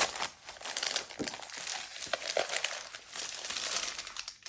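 Paper and fabric-wrapped journal signatures being handled: irregular rustling and crinkling of paper with a few light taps, fading out near the end.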